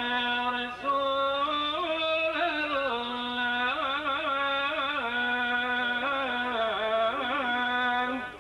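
A man chanting the salawat, the Arabic blessings on the Prophet, solo and unaccompanied in long melismatic lines: held notes with ornamented turns, and a short break for breath about a second in.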